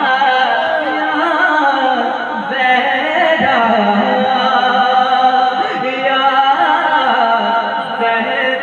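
A man singing a naat unaccompanied, in long wavering sung phrases with no instruments or drums.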